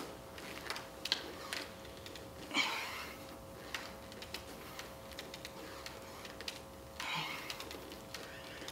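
A man breathing out hard twice while doing push-ups, about two and a half seconds in and again near seven seconds, over a steady faint hum, with a few small clicks.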